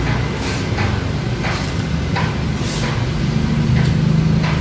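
Steady low rumble with light, sharp clinks of a metal spoon against a small ceramic bowl every second or so.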